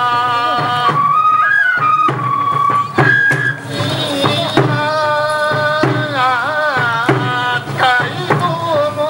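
Bon-odori dance music: long held, wavering melody notes over a steady drum beat.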